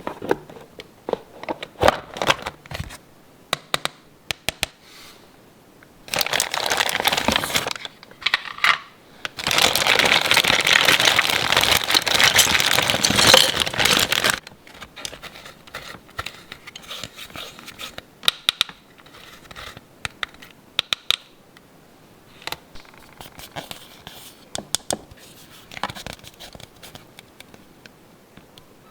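Toy packaging being unwrapped by hand: scattered clicks and taps, and two longer stretches of plastic crinkling and tearing, the louder one lasting about five seconds in the middle.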